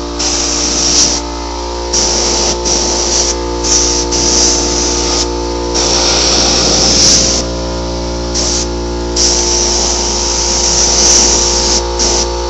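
Paint spray gun spraying in repeated bursts of hiss, each a second or so long, starting and stopping with the trigger, over a steady hum with several held tones.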